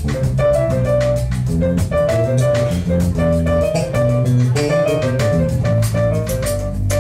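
Jazz sextet playing live: grand piano playing quick runs of notes over low sustained bass notes, with the drum kit's cymbals keeping time.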